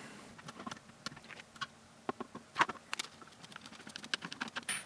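Faint, irregular small clicks and ticks of a hex key turning a small screw into 3D-printed plastic suspension parts, with the light knocks of the parts being handled.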